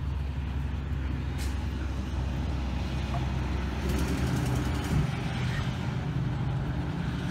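Diesel semi truck pulling a flatbed trailer, passing on the road, its engine droning low and steady. A brief spell of rapid rattling comes about four seconds in.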